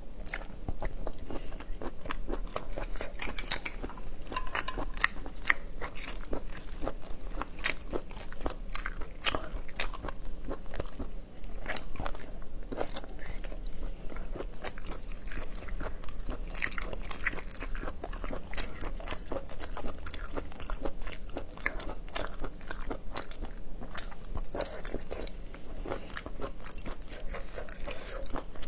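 Close-miked biting and chewing of cooked abalone meat: a dense run of wet mouth clicks and crunchy bites picked up by a lapel microphone at the eater's collar.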